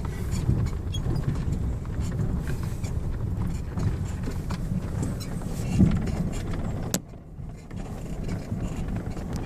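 A vehicle driving slowly over rough ground: a steady low rumble of engine and tyres with small rattles. There is a sharp click about seven seconds in, after which it is briefly quieter.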